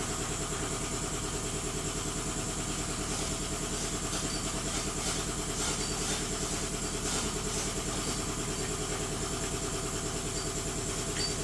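Short-throw 3/32 dual-action sander running steadily, wet-sanding clear coat with a fine-grit disc.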